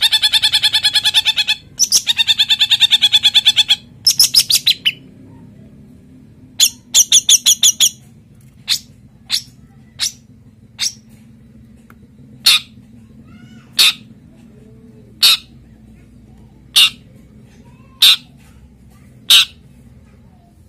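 Male long-tailed shrike (cendet) calling in breeding condition: fast, rattling runs of buzzy notes in the first few seconds, then single sharp call notes repeated about every second and a half.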